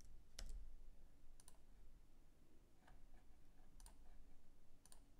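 Faint clicks of a computer mouse and keyboard, about half a dozen spread out, some in quick pairs.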